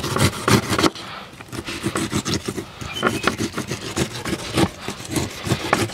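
A large kitchen knife slicing the rind off a whole pineapple in quick repeated strokes, each a short rasping scrape through the tough, spiky skin.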